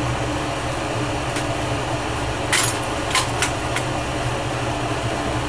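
Glassblowing bench torch flame running with a steady rushing noise over a low hum, with a few sharp clicks between about two and a half and four seconds in.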